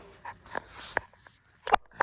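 Bandsaw's power cord being unplugged: a few light clicks and knocks, the sharpest one near the end.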